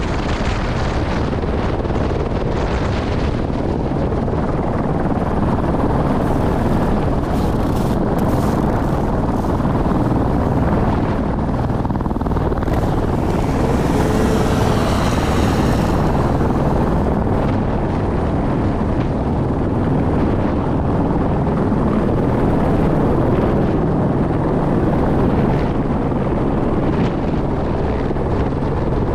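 Eurocopter helicopter in flight: steady, loud rotor and turbine noise.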